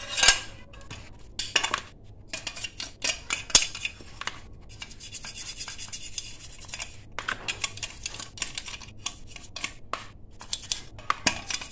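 Sharp metal clinks and knocks as a Yamaha RX-King engine case cover is handled and scraped, with a stretch of steady scratching around the middle: softened paint being worked off the metal.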